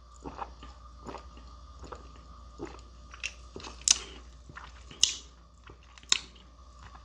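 A person eating close to the microphone: chewing with small wet mouth clicks and a few sharper crunches or smacks.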